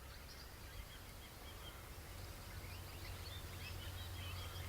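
A flock of swift parrots keeping contact with many short, high, squeaky chirps overlapping one another, over a low steady rumble.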